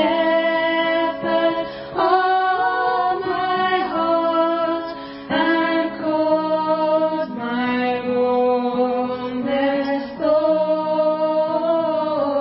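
A congregation singing a slow hymn in long held notes, the chords changing every second or two.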